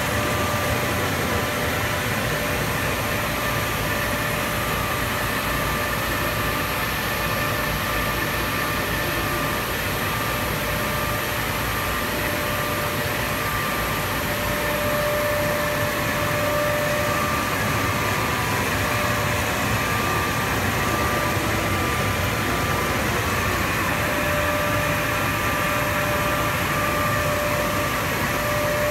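CNC fabric cutting table running while cutting marine canvas: a steady mechanical hum and rush of air, with a thin whine from the moving gantry that comes and goes.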